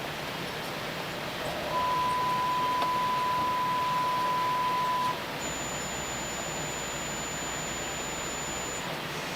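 Sine-wave test tones over steady hiss, as used in measuring a tube amplifier. A steady tone of about 1 kHz starts about two seconds in and stops after about three and a half seconds. A fainter, high tone near 7 kHz then holds for about three and a half seconds, with a faint low hum beneath it.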